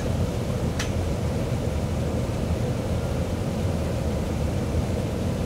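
Water gushing under pressure from a sheared fire hydrant beneath a pickup truck: a steady rushing noise, heaviest in the low end. Two short sharp clicks near the start.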